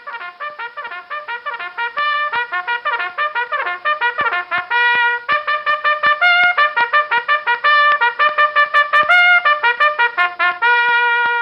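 Solo trumpet playing a fast call of quick separately tongued notes that leap up and down between a few pitches, growing louder, and ending on a long held note near the end.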